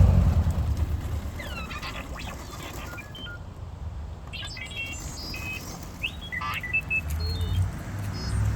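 R2-D2 droid beeps and whistles played through the 3D-printed replica's sound system: a chatter of short sweeping chirps and quick steady-pitched beeps. A low hum of its drive motors fades out at the start and comes back near the end.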